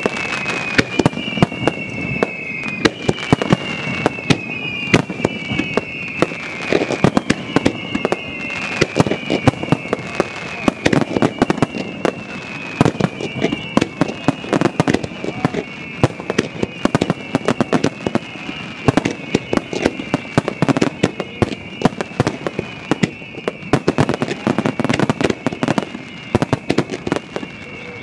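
A fireworks barrage of aerial shells and water-surface shells, with bangs going off in rapid, dense succession. Many high whistles that fall slightly in pitch overlap through most of it and thin out near the end.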